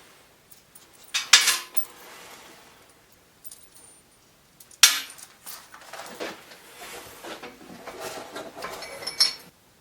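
Metal hardware clinking and clanking as a bracket and bolts are handled and fitted: a sharp clank about a second in, another near the middle, then a run of small rattles and clinks.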